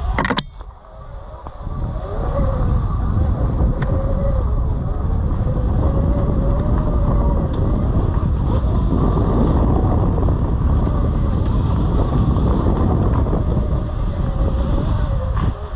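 Sur Ron electric dirt bike riding a dirt trail. Its electric motor whines at a pitch that wavers up and down with the throttle, under heavy low wind buffeting on the microphone. A sharp knock comes right at the start, followed by a brief lull before the motor picks up again.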